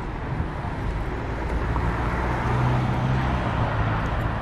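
A motor vehicle passing on the road: a low engine hum and tyre noise grow louder to a peak around the middle, then ease off.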